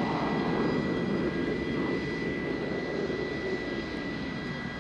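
Jet aircraft engine noise: a steady rushing with a thin high whine held on one note, and a lower tone that slowly falls in pitch as the sound gradually fades.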